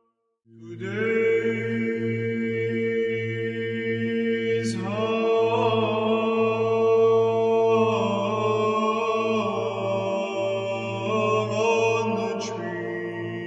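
Orthodox chant sung over a steady low held drone, the melody moving in long sustained notes. It starts about half a second in after a brief silence.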